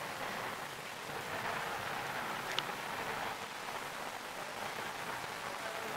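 Steady hiss of subway platform ambience, with one short sharp click about two and a half seconds in.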